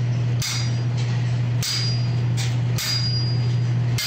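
Hammer blows driving a punch into red-hot iron on an anvil: four strikes at an even, unhurried pace about a second apart, each with a brief metallic ring. A steady low hum runs underneath.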